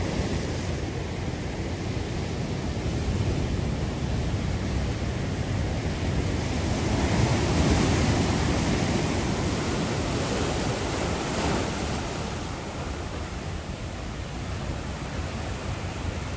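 Ocean waves surging and breaking over shoreline rocks: a steady rushing wash of surf that swells louder about halfway through, then eases.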